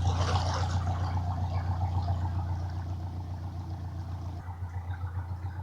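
Canal narrowboat's engine chugging steadily at low revs as the boat passes close by, a deep pulsing hum that slowly fades.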